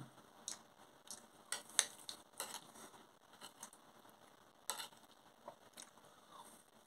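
Metal fork clinking and scraping on a dinner plate while scooping up soft mash and peas: a scatter of faint short clicks, thickest about a second and a half in and again near the five-second mark.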